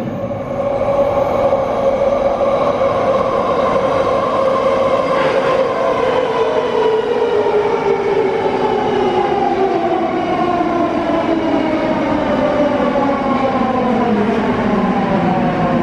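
Warsaw Metro 81-series (Metrowagonmash 81-572.2/81-573.2) train pulling into the station, its traction motors and gearing whining in several stacked tones that fall steadily in pitch as it slows, over a steady rumble of wheels on rail.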